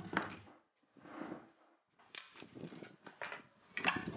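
Plywood jig parts being handled on a table saw: a few short scrapes of wood sliding over the table and several light knocks and clicks as pieces are moved and lifted.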